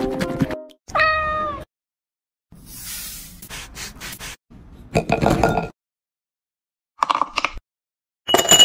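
A cat's short meow about a second in, falling slightly in pitch. It is followed by brief rustling and a few short clinks of glass, and ice cubes start clinking into a glass near the end, each sound set apart by silence.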